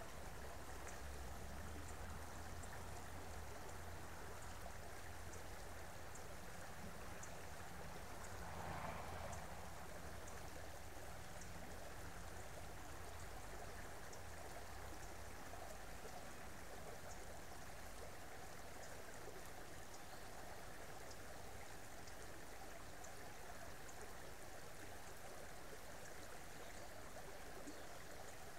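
Creek water running, a faint steady rush with small scattered high drips. There is a low rumble underneath and a brief louder swell about nine seconds in.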